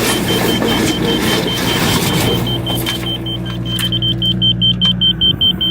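Excavator diesel engine running steadily, with a rapid high beeping, about six beeps a second, that grows much louder in the last second and a half. The beeping is typical of a laser grade receiver signalling the bucket's height against grade. A few knocks in the first half.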